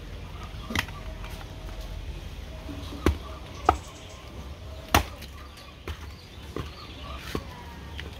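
Axe chopping firewood on the ground: about seven sharp strikes at an irregular pace, the loudest three in the middle.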